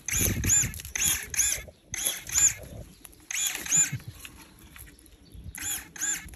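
ZANON ZE-25 battery-powered pruning shears making five quick cuts through vine canes. Each cut is a pair of short motor whines, one as the blade snaps shut and one as it springs back open.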